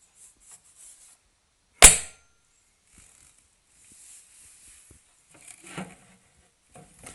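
One sharp, loud knock about two seconds in, then faint clicks and a short run of small rattling knocks, from a Suzuki TL1000R headlight unit being handled. The rattle comes from a projector (DE) lens that has worked loose inside the housing.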